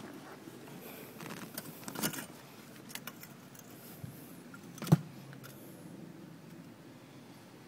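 Handling noise as a hand grips and moves a vinyl car seat: scattered rustles and clicks, a short cluster about two seconds in, and one sharp knock about five seconds in.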